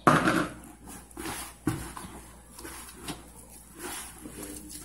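Egg being worked into sticky cassava-starch dough in a bowl: a sharp knock at the start, then irregular wet knocks and scrapes of the mixing.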